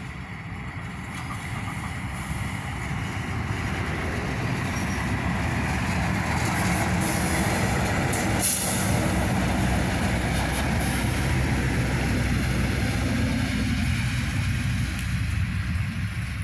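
KAI GE CC206 diesel-electric locomotive and its stainless-steel passenger coaches passing close by, the engine and wheels on the rails growing louder over the first few seconds, then a steady rumble as the coaches roll past. A brief high hiss comes about halfway through.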